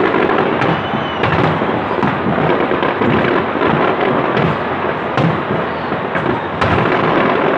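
Fireworks display: many aerial shells bursting at once in a dense, continuous rumble and crackle, with sharper bangs standing out about a second in and again a little after five and six seconds.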